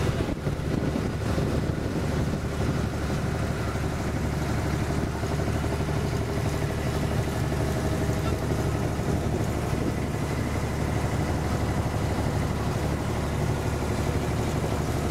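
Engine of a small open passenger water-taxi boat (abra) running steadily under way, a constant low drone, with wind rushing over the microphone and water noise.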